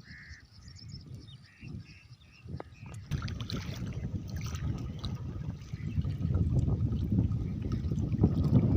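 Floodwater rushing, growing louder about three seconds in, with a few faint chirps in the first seconds.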